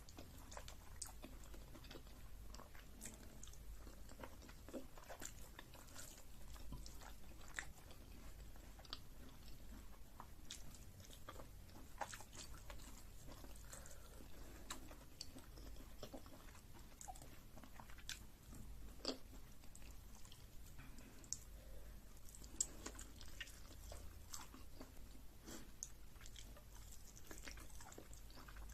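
A person chewing and eating fufu with vegetable soup and chicken, close to the microphone: soft wet mouth sounds with scattered sharp clicks and an occasional crunch.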